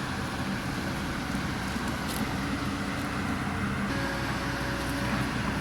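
Excavator's diesel engine running steadily, its note changing and a deeper rumble coming in about four seconds in.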